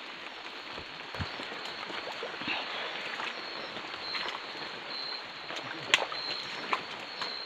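Footsteps and leaves and branches rustling as people push through dense forest undergrowth, with scattered small snaps and one sharp crack about six seconds in. A faint high chirping repeats in short pulses.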